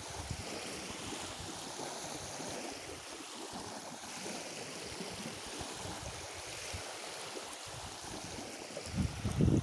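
Sea waves washing steadily on the shore. Near the end, wind starts buffeting the microphone with loud low rumbles.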